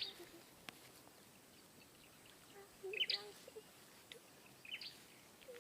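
A few short, high bird chirps, one cluster about three seconds in and another near the end, over faint outdoor background.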